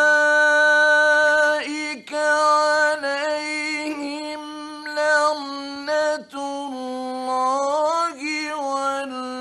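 A male Quran reciter chanting in the melodic mujawwad style: a long held note, then a run of ornamented phrases broken by two short breaths, dipping lower in the second half.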